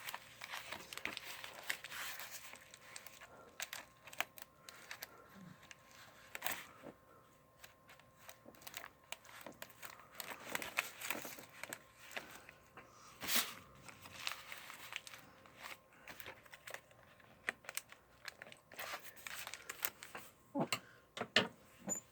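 A package being torn open by hand: intermittent tearing, crinkling and rustling of packaging, with scattered sharp clicks and snaps, the sharpest about two-thirds of the way through.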